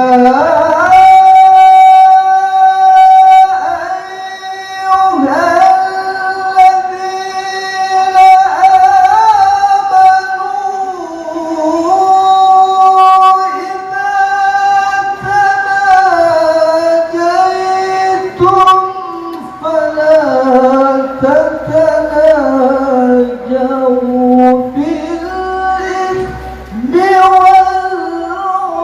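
A man reciting the Qur'an in melodic tilawah style, holding long, high, ornamented notes that glide up and down, with short pauses for breath between phrases.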